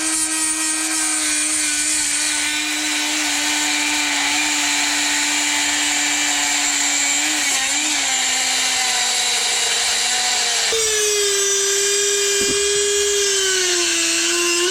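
Dremel rotary tool running with a steady high whine while cutting away a metal piece that blocks the shifter linkage; its pitch sags and wavers a little under load, then steps up higher about ten seconds in.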